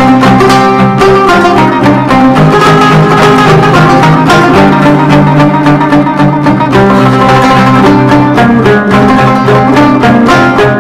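Instrumental background music with steady held notes.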